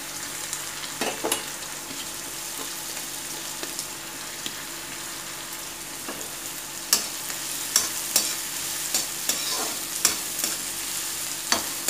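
Chopped onion frying in hot mustard oil in a metal kadhai, with a steady sizzle. A slotted metal spatula scrapes and knocks against the pan, giving sharp clicks that come more often from about seven seconds in.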